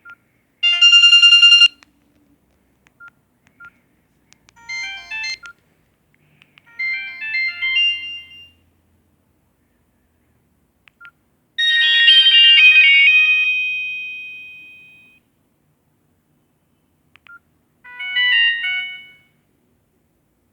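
Samsung GT-E1200i mobile phone playing short snippets of its built-in electronic ringtones one after another: five brief melodies, each stopping after a second or so, the fourth ringing on and fading over about three seconds. Short single beeps sound in the gaps between them.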